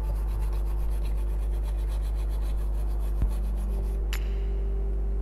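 Fast, even rubbing strokes of scrubbing a portable DVD player's circuit board clean, stopping about four seconds in, with a couple of sharp clicks after that. A steady low electrical hum runs underneath.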